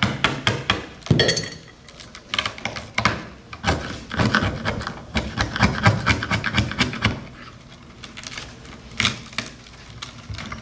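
A screwdriver scraping, prying and chipping along the wooden spline groove of a chair back, digging out old glue, spline and cane in a rapid run of clicks and knocks. The scraping eases off about seven seconds in, and a few more clicks come near the end.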